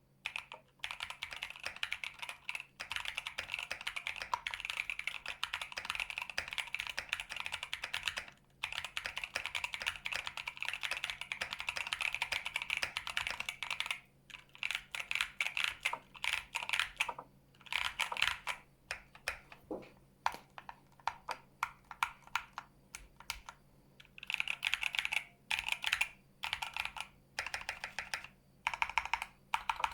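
Typing on a Keychron Q1 mechanical keyboard with Kailh Cream switches: rapid continuous keystrokes for about the first half, with a brief pause, then typing in short bursts with short gaps between them.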